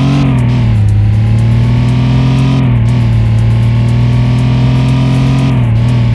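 Chevrolet Camaro engine droning at steady revs after revving up, its pitch dipping briefly and recovering three times.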